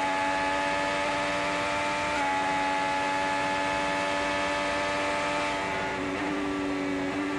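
IndyCar 2.2-litre twin-turbo V6 heard through the onboard camera, running at speed with a steady note. Its pitch steps slightly about two seconds in and again near the end.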